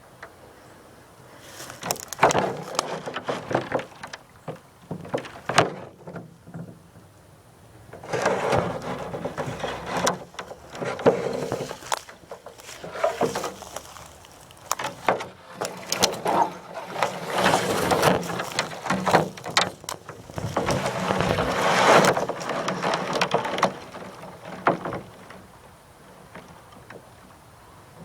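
Rustling and crunching of movement through dry leaves and brush, in irregular stretches broken by scattered snaps and knocks.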